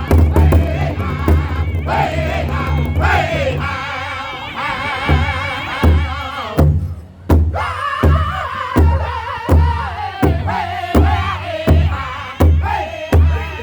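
Powwow drum group singing a chicken dance song around a big drum: high, wavering male voices over a fast, dense drumbeat that, after a brief break about seven seconds in, settles into even strokes about one and a half times a second.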